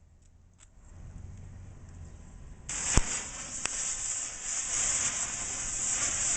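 Visco fuse catching about two and a half seconds in and burning with a loud, steady hiss, with a sharp click just after it lights.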